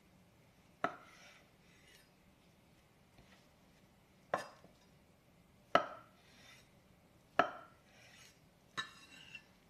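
Kitchen knife cutting through thick fried tofu and knocking on a wooden cutting board: five sharp knocks spaced a second or more apart, each followed by a brief scrape.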